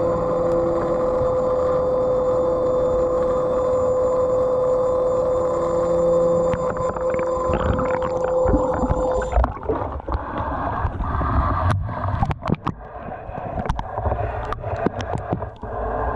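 Electric thruster of a Sublue underwater scooter running with a steady whine, heard underwater; the whine cuts off about nine seconds in. After that come water sloshing and scattered sharp clicks and crackles.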